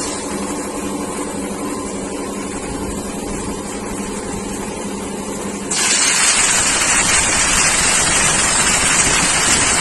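Atlas Copco high-pressure air compressor running with a steady hum. About six seconds in, a sudden loud hiss of compressed air venting starts and goes on for about four seconds.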